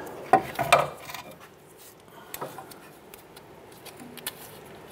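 A strut-and-coil-spring assembly being handled into place against the suspension: two sharp metal knocks in the first second, then a few light clinks and rubbing sounds.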